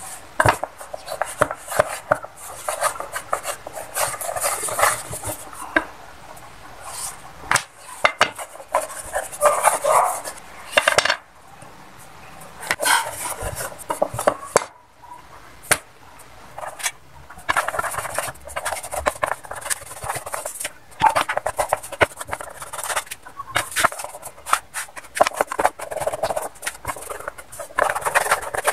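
A thin wooden dowel used as a rolling pin, rolled back and forth over egg-noodle dough on a floured wooden board. It makes a rough rubbing, rolling sound in spells, with sharp knocks of wood here and there and a few brief quieter pauses.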